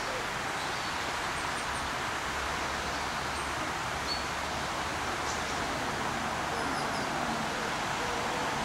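Outdoor ambience: a steady rustling hiss with a few faint, short bird chirps high up, and a low rumble from about two seconds in.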